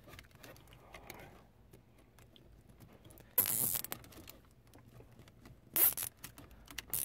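Nylon zip tie ratcheting as it is pulled tight around a car's wiring harness: two short rasps about two seconds apart, the first longer, with faint rustling and clicking of wires and plastic in between.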